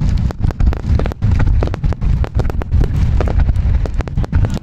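Aerial fireworks bursting in quick succession: many sharp bangs and crackles over a continuous low rumble.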